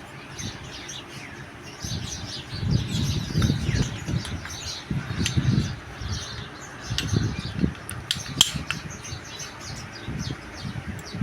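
Small birds chirping repeatedly, with dull low thumps of handling scattered through and a few sharp clicks about eight seconds in.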